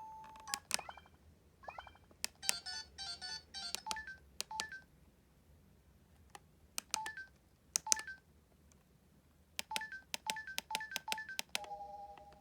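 Keypad tones of an SK Telesys IF-100 mobile phone: a dozen or more key presses, each a sharp click followed by a short two-pitch beep, some pressed in quick runs. Near the end comes a longer, steady two-pitch tone.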